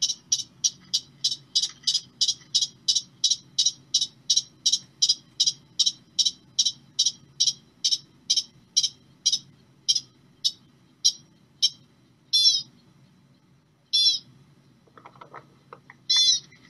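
American pika calling: a long run of short, high eeps at about three a second that slows after some ten seconds, then three separate calls made of falling notes near the end. A low steady rumble from the field recording lies under it.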